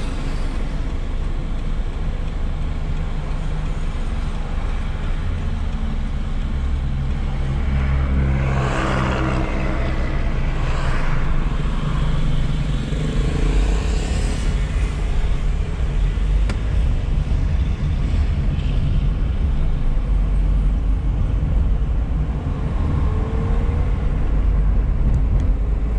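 Car engine and road noise heard from inside the cabin: a steady low rumble while stopped, then the engine pulling away and the car driving along at speed.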